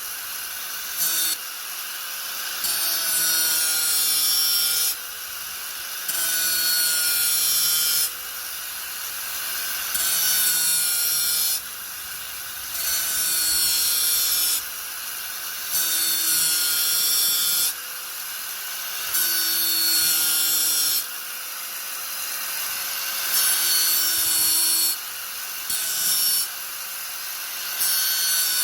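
Angle grinder running steadily with a constant motor whine, biting into the work in repeated passes of about two seconds each, roughly every three seconds. Each pass adds a loud, harsh grinding hiss over the whine.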